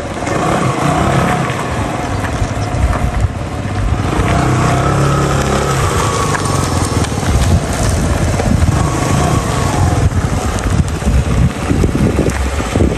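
Suzuki Gemma 250 scooter's water-cooled 249cc four-stroke single-cylinder engine running as it is ridden at low speed, its note rising and falling with the throttle.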